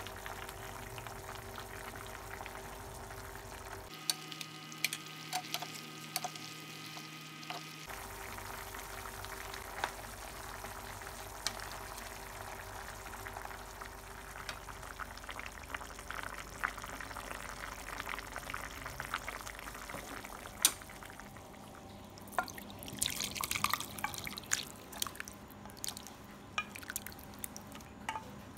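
Doenjang jjigae (soybean-paste stew of tofu and zucchini) simmering in a pan, a steady hiss, while a wooden spoon stirs the paste in with light clicks against the pan. Near the end come a cluster of clinks and splashes as the stew is poured into a glass bowl.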